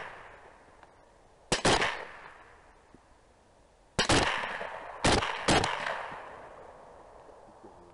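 Several rifle shots: a quick pair of cracks about a second and a half in, another at about four seconds, then two more close together about a second later, each trailing off in a long echo.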